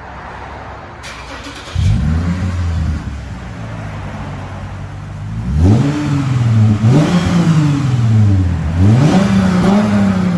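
Lexus IS 350's 3.5-litre V6 running through its aftermarket exhaust with a deep tone. It rises sharply about two seconds in, settles, then from about halfway is revved three times, each rev climbing and falling back.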